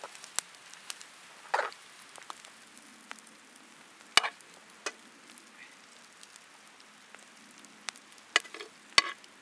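Scattered clicks and short scrapes of a knife and spoon against a plastic chopping board and a pan, over a faint steady hiss.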